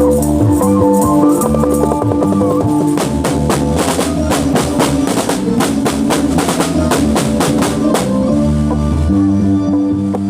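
Live band music: held keyboard-like chords over a bass line, broken by a fast drum fill of rapid strokes from about three to eight seconds in, after which the held chords return.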